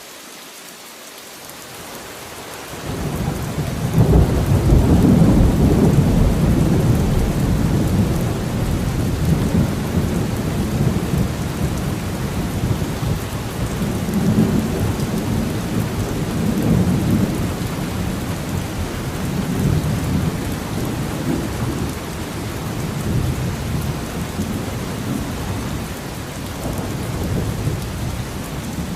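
Steady rain with thunder: a deep rumble comes in about three seconds in, is loudest just after, then keeps rolling in slow swells over the hiss of the rain.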